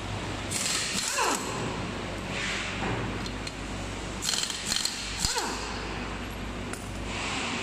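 Pneumatic impact wrench run in three short bursts, spinning lug nuts off a car wheel, with a falling whine as the tool winds down after a burst.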